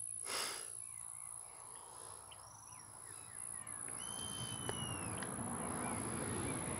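Birds calling: drawn-out whistles that arch up and down, mixed with many short chirps. There is a brief rustle about half a second in, and a hissing buzz grows louder in the second half.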